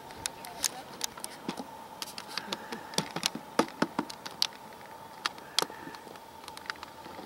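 Gas bubbles rising through the hot spring and bursting at the surface, giving irregular pops and clicks, several a second at times.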